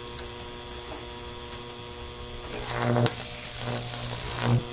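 Microwave oven transformer humming steadily, then about two and a half seconds in a high-voltage arc from the pencil strikes the phone and buzzes loudly with a hiss for about two seconds before cutting off suddenly near the end.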